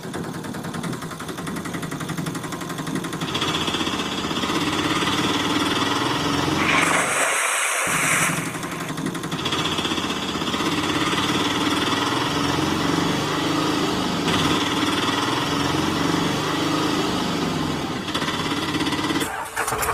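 Auto rickshaw engine sound running steadily with a rapid putter. About seven seconds in, a brief hissing burst cuts across it.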